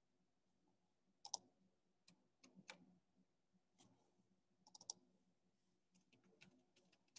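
Faint, scattered clicks of a computer mouse and keyboard keys, a quick cluster of clicks just before the five-second mark and a run of keystrokes near the end.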